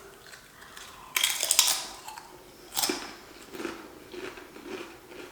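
Crunchy ridged potato chips being bitten and chewed close to the microphone. There is a loud crackly crunch about a second in, a sharper one near three seconds, then softer chewing crunches.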